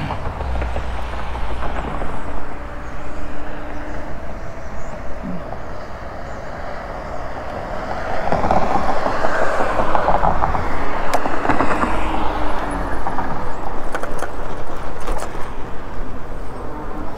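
Wind on the microphone and road noise from a moving fat-tyre e-bike, with a vehicle going by: the noise swells about halfway through and stays louder.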